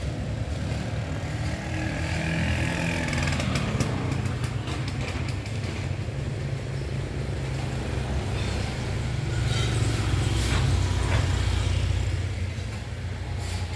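Steady low rumble of road traffic that swells in the second half, with a quick run of clicks about four seconds in.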